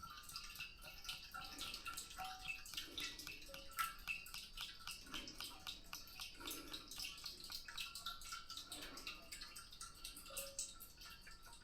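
Hydraulic fluid being poured into a backhoe's hydraulic tank, glugging every second or two with dripping and small ticks in between.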